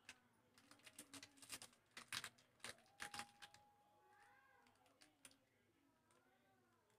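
Small plastic mint-candy wrapper crinkling and crackling as it is handled and torn open, in a quick run of sharp crackles that dies away about halfway through. Two short rising-and-falling pitched calls follow later on.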